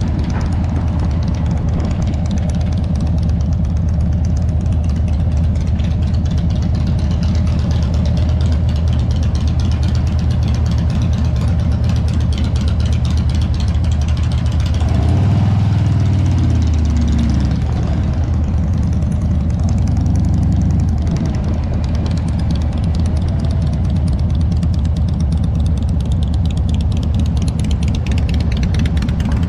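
Motorcycle engine running at low speed and idling, a steady low rumble with one rise and fall in engine speed about halfway through.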